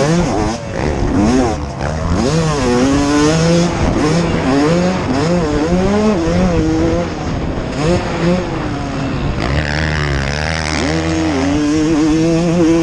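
Motocross motorcycle engine racing, its pitch rising and falling again and again as the throttle is opened and closed, with a rougher, noisier stretch about ten seconds in.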